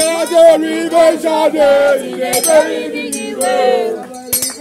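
Singing over music, with a steady held note underneath the melody.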